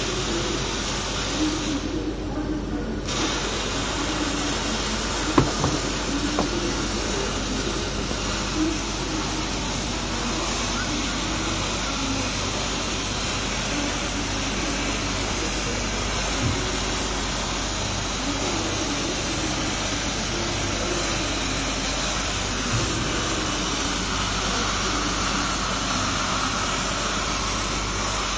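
MIG welding arc on steel, a steady frying hiss that cuts out for about a second near the start and then starts again and runs on, with a few faint knocks.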